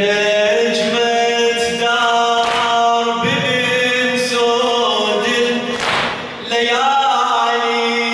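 A male radood chants a Muharram elegy unaccompanied into a microphone, in long held melodic notes that bend between phrases.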